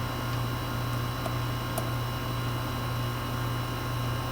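Goodman air-conditioner condensing unit running: a steady hum from the compressor and condenser fan, with a couple of faint clicks.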